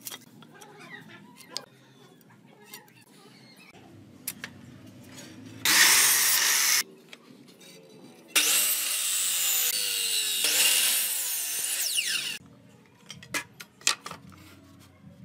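Electric miter saw cutting through a wooden board twice: a short cut of about a second, then a longer one of about four seconds with a falling whine near its end. Light knocks and clicks of wood being handled come before and after the cuts.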